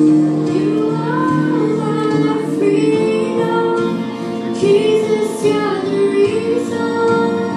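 A girl singing a song into a microphone over instrumental accompaniment, her voice holding and bending through long sung notes.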